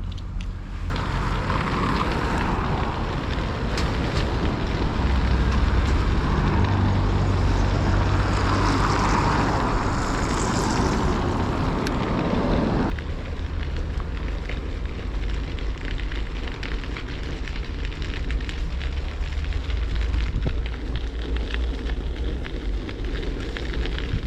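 Wind buffeting the microphone during a ride, a continuous rumbling rush. It is loudest for the first dozen seconds and drops abruptly to a steadier, quieter rush about thirteen seconds in.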